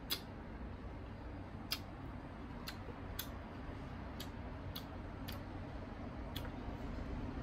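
Crisp chewing of unripe green mango close to the microphone: scattered sharp clicks at an irregular pace over a steady low background hum.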